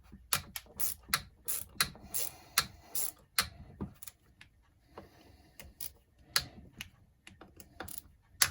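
Irregular sharp clicks and small knocks from a hex driver working screws into an RC car chassis by hand, about two or three a second, with one louder click near the end.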